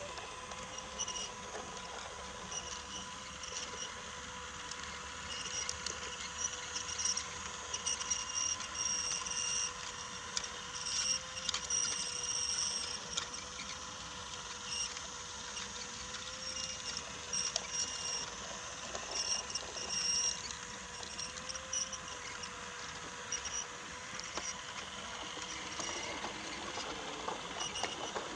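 Battery-powered Brio toy locomotive running on wooden track: its small electric motor gives a steady whine, over a light rattle and clicking of wheels and wooden cars on the rails.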